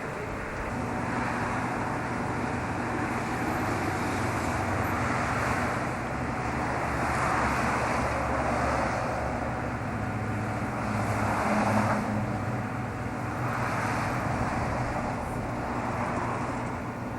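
Road traffic: vehicles go by one after another, each a swelling and fading rush of tyre and engine noise, over a steady low hum.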